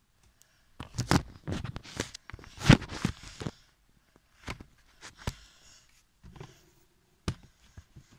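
Handling noise from fingers bumping and rubbing against the recording phone: a cluster of knocks and rustles in the first three and a half seconds, then a few single knocks.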